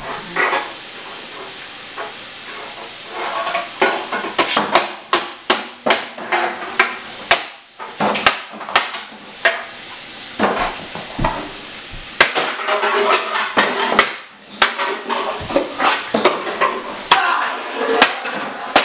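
Irregular sharp knocks and clicks of a knife and a metal can against a tile floor, sparse at first and coming thick and fast from about four seconds in.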